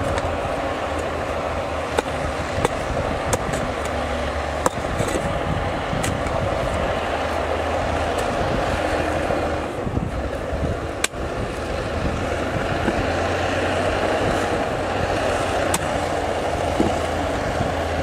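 Bulldozer at work: its diesel engine runs steadily, with scattered sharp clanks from the tracks and the rock and sand it is pushing.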